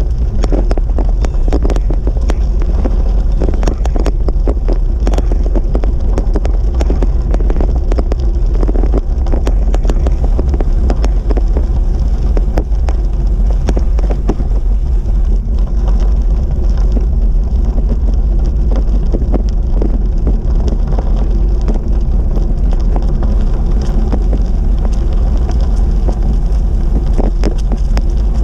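Wind buffeting the microphone of a camera on a moving bicycle: a loud, steady low rumble with a constant crackle over it.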